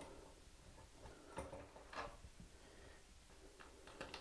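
Near silence with a few faint metal clicks as a nut is taken off a toilet's closet bolt.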